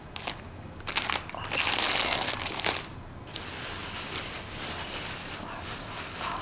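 Clear plastic packaging crinkling and crackling as it is handled. The crinkling is loudest in a long stretch beginning about one and a half seconds in, then breaks off briefly and goes on as softer, continuous rustling.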